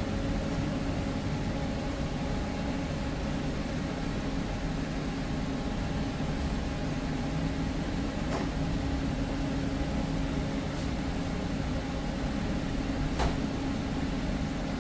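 A steady low mechanical hum with two short sharp clicks, one about eight seconds in and one near the end.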